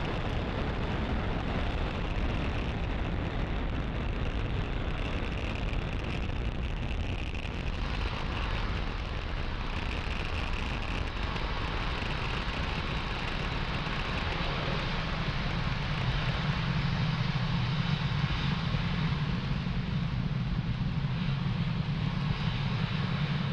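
Steady noise of the Falcon 9 first stage's nine Merlin 1D engines firing during liftoff and early ascent, growing a little deeper and stronger about two-thirds of the way in.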